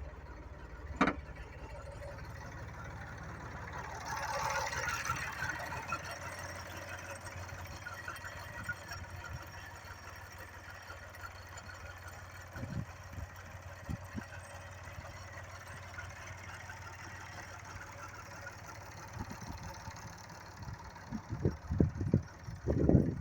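Landini Blizzard 50 tractor's three-cylinder Perkins diesel idling steadily, with a sharp click about a second in and several loud thumps near the end.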